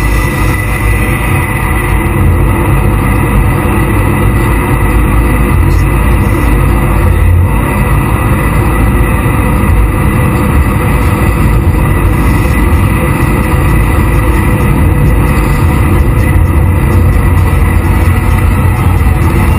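Jet boat running at speed over ocean swells: a loud, steady rumble of engine, wind and water, heaviest in the low end.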